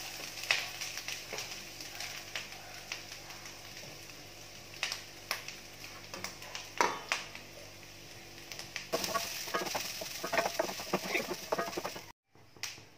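Hot coconut oil with tempered mustard seeds, urad dal and dried red chillies sizzling as freshly grated coconut is tipped in by hand from a steel plate, with scattered sharp pops. From about nine seconds in come denser crackling and scraping as a wooden spatula stirs it in the pan.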